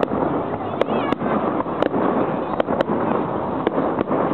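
Fireworks display: aerial shells bursting in a quick irregular series of sharp bangs, about two a second, over a dense continuous background of noise.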